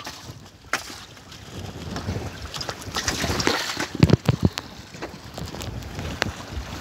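Wind buffeting the microphone in gusts, with a few sharp knocks and a cluster of heavy thumps about four seconds in.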